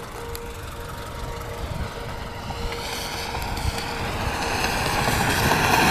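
Road vehicle approaching on the road, its tyre and engine noise growing steadily louder toward the end.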